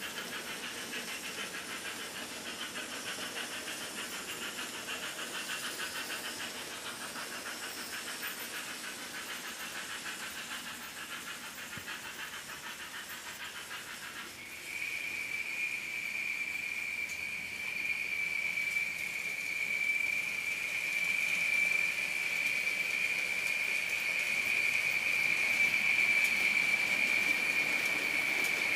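HO-scale model trains running on a Märklin layout. A pulsing hiss and rattle fills the first half; about halfway a steady high whine sets in and grows louder towards the end, as of a model locomotive's motor.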